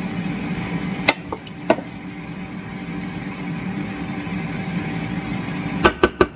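Wooden spoon stirring dumplings and vegetables in a square copper-coloured pan, knocking sharply against the pan a few times about a second in and in a quick run of four knocks near the end, over a steady hum.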